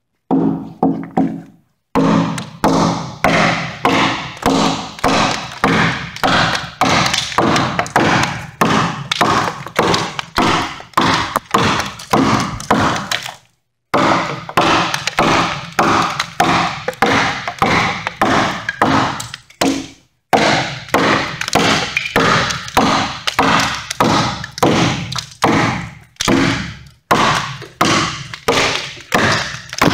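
Council Tool pack axe with a 2 lb head chopping into a squared timber beam: a steady run of thunks, about two strikes a second, with a few short pauses. This is heavy stock removal to rough out a half-lap joint.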